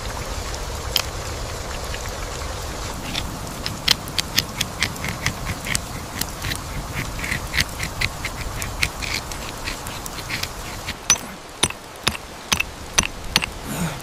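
Flint stones struck together again and again to throw sparks: sharp clicks about two to three a second, starting a few seconds in, over a steady hiss of rain.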